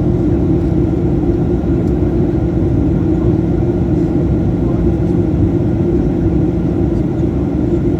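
Airliner noise during the landing approach: a loud, steady rumble of engines and rushing air with a faint constant hum, unchanging throughout.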